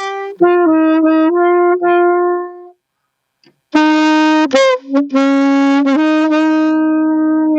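Saxophone playing a slow melody of held notes, stopping for a breath about three seconds in, then picking up again with a short bend down in pitch.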